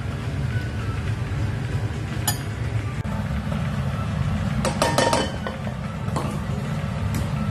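Kitchen cooking sounds: a steady low rumble under a few metal utensil clinks against cookware, with a quick cluster of clinks about five seconds in.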